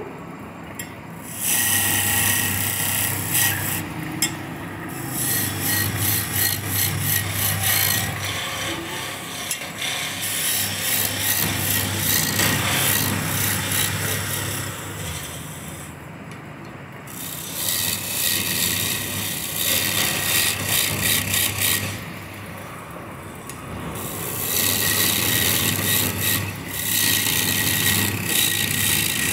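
Wood being cut on a spinning lathe: a turning tool scraping and rasping against the rotating workpiece in several long passes, with short pauses between them.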